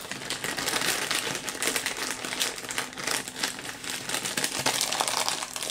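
Thin plastic packaging bag of soft plastic fishing baits crinkling and crackling as hands handle it and pull at its top, with many small irregular crackles throughout.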